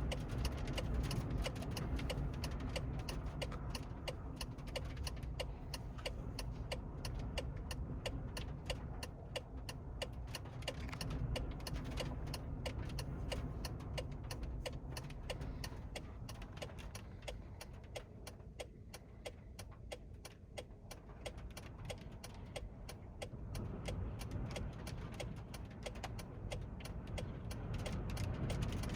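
Strong storm wind buffeting a pickup truck and the microphone: a heavy, steady rumble that eases off a little past the middle and builds again near the end. A rapid stream of sharp ticks runs through it, rain and wind-blown grit striking the truck.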